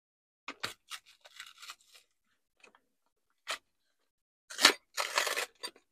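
Small paper packet and the plastic bag inside it crinkling and tearing as they are picked open by hand, in scattered short bursts, the loudest a cluster of crackles about four and a half to five and a half seconds in.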